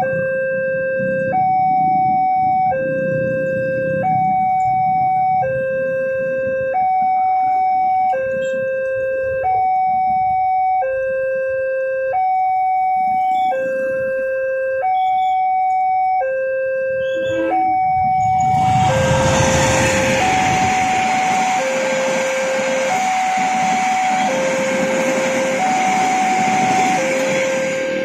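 Railway level-crossing electronic warning alarm sounding two alternating tones, each held about a second and a half. About 18 seconds in, the noise of a passenger train passing the crossing joins the alarm and stays louder than it to the end.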